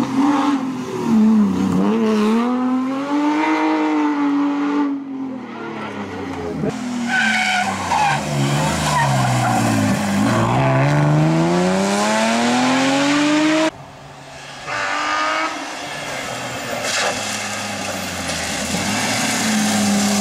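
Historic rear-wheel-drive rally cars driven hard on a tarmac stage. Their engines rev up and drop back with throttle and gear changes, and tyres squeal through the bends. Several passes are cut together, changing abruptly about 5, 7 and 14 seconds in.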